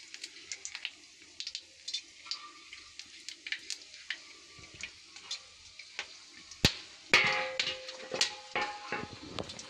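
Cumin seeds crackling in hot oil in an iron kadhai, a scatter of small pops. About seven seconds in, a steel plate lid clanks down onto the pan and rings briefly.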